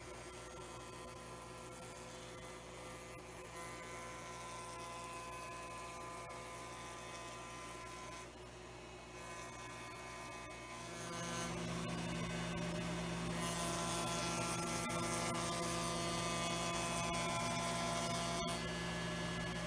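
Electric motor of a router running with a steady hum and buzz, getting louder about eleven seconds in, as the cope-and-stick cutter is used to cut an ogee profile.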